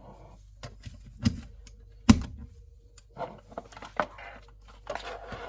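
A series of sharp clicks and knocks, as of plugs and fittings being handled at a wall socket, the loudest about two seconds in.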